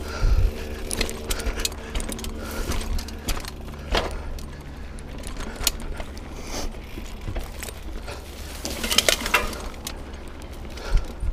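Mountain bike clattering over roots and rocks on a dirt trail: chain and drivetrain rattling with many short clicks and knocks, thickest about nine seconds in, over a steady low rumble.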